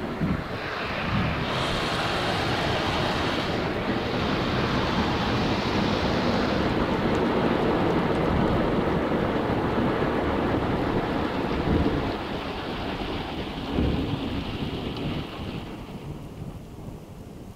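Water jets of a Kleindienst Euro Combi rollover car wash spraying onto the car's roof and windows, heard from inside the cabin as a dense, rain-like hiss. The spray eases off near the end.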